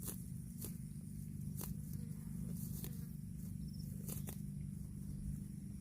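A cow grazing, tearing off mouthfuls of grass with sharp crunching snaps at irregular moments, about seven in all. Under it runs a steady insect buzz and a low hum.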